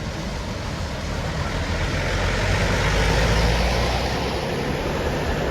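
A large road vehicle passing by, its low engine rumble and tyre noise swelling to a peak about three seconds in and then easing off.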